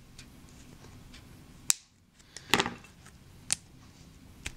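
Four sharp clicks and snaps of an LED bulb's plastic housing being pried apart with pliers and fingers, the loudest, with a short rattle, about two and a half seconds in.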